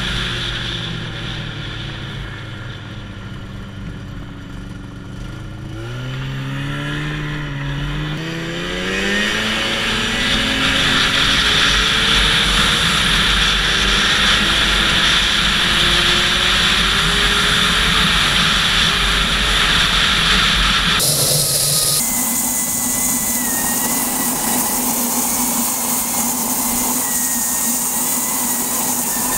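1996 Yamaha Phazer snowmobile's two-stroke twin engine easing off for several seconds, then revving up as the sled accelerates and running steadily at speed. About two-thirds of the way through the sound changes abruptly to a steadier, hissier run.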